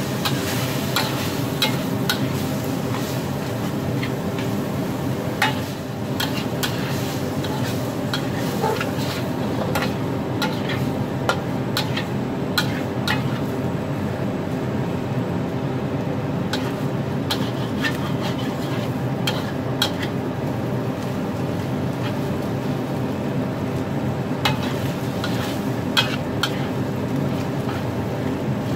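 Egg fried rice with minced pork being stir-fried in a wok: steady sizzling over a low hum, with frequent clicks and scrapes of a metal spatula against the wok.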